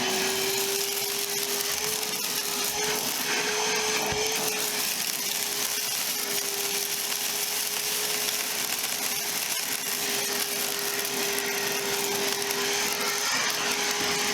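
Milwaukee M12 Fuel cordless wet/dry shop vac's brushless motor running steadily on its high setting: an even whine over a rush of air.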